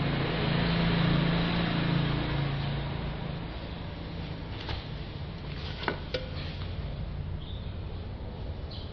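Steady background hiss and low hum that drops after about three seconds, with a few light clicks and taps from the plastic bottle and brush as resin is poured onto the mould and brushed out.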